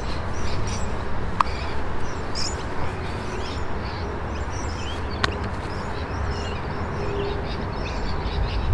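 Outdoor ambience: birds chirping here and there over a steady low rumble.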